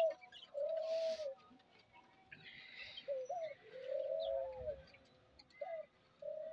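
Chickens making soft, drawn-out calls while feeding, about seven in a row, some short and some held for most of a second. Faint rustling of bread crumbs and plastic bags being handled comes in twice.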